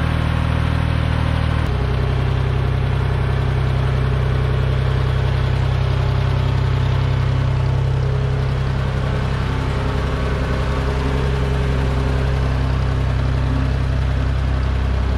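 A 1974 Ford 3550 industrial tractor's engine running steadily, its note changing slightly about two seconds in.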